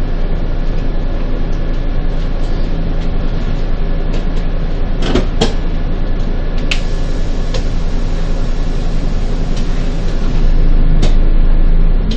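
Bus engine and road noise heard from inside the moving bus, a steady low rumble, with a few sharp rattles and clicks around the middle. It grows louder near the end.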